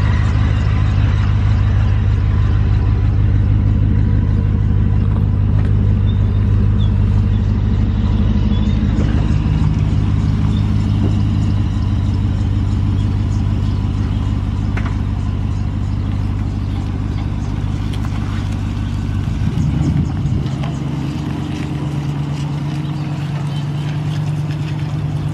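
Full-size Chevrolet Suburban's engine running steadily while hitched to a loaded flatbed trailer. About twenty seconds in the engine note changes as the rig pulls away.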